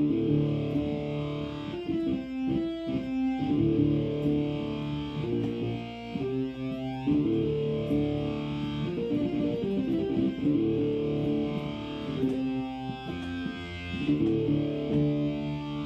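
Distorted sawtooth synthesizer patch in Arturia Pigments, fed through an AmpliTube guitar amp model and played on a keyboard, sounding like overdriven electric guitar. It plays held chords that shift every second or two, with a quick run of short notes about two seconds in. The filter resonance comes in on a slow envelope for a howling, feedback-like edge.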